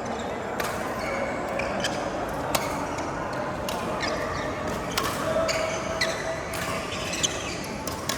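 Badminton rally: sharp racket hits on the shuttlecock about once a second, with short squeaks from court shoes between them.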